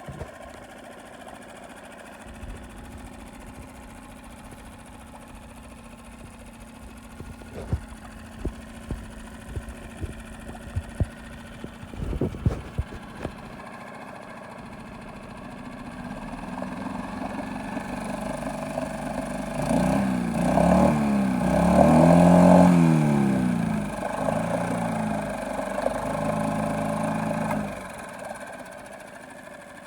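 Honda 5 hp four-stroke outboard motor idling steadily, with a run of sharp clicks and knocks about a third of the way through. Later it is revved up and down a few times, held at a higher speed, then drops back to idle near the end.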